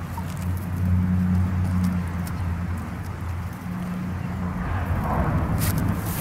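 A steady low mechanical hum, like a motor running, with a few sharp clicks about five to six seconds in.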